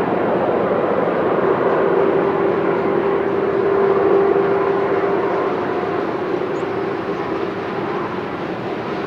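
Freight train running past on the rails: a steady rolling rumble with a held tone through it, easing a little after about five seconds.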